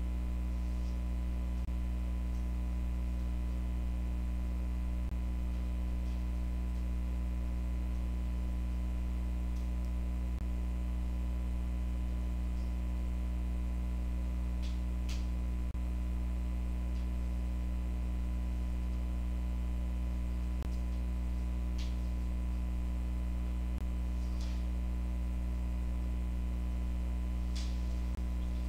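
Steady electrical mains hum, a low buzz with a stack of overtones, running unchanged, with a few faint clicks scattered through it.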